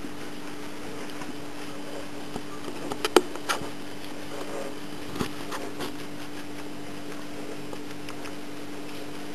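Guinea pig chewing spinach leaves, a few sharp crunches about three seconds in and a few softer ones about five seconds in, over a steady low hum and hiss.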